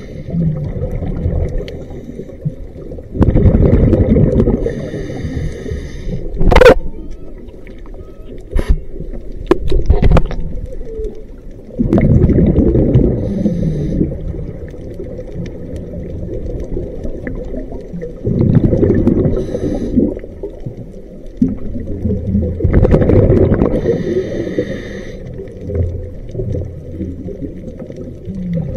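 A scuba diver breathing through a regulator underwater: about four breaths, each a rush of exhaust bubbles with a hiss from the regulator, a few seconds apart. A sharp click about six and a half seconds in, with fainter clicks near ten seconds.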